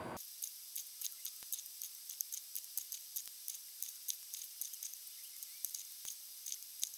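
Small magnets clicking lightly against one another and against the hub motor's rotor ring as they are pulled out and stacked into a strip: faint, irregular ticks several times a second, with a few sharper clicks.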